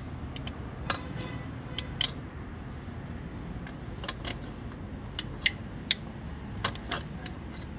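Light metallic clicks and clinks at irregular intervals over a steady low hum: piston rings and parts being handled and test-fitted in the cylinder bores of a Range Rover 5.0 V8 engine block.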